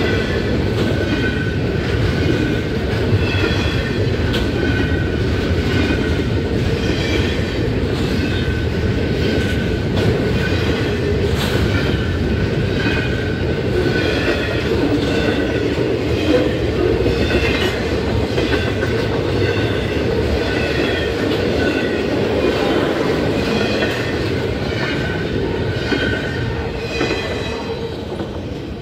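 Double-stack intermodal well cars of a freight train rolling through a grade crossing, wheels clacking over the rails, while the crossing bell rings in a steady rhythm. The train noise fades near the end as the last car passes.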